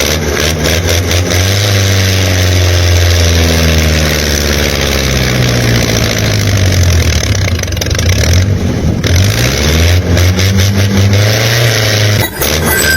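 An engine running and revving, its pitch rising and falling several times, with a brief dip in the high end about two-thirds of the way in. It stops about a second before the end.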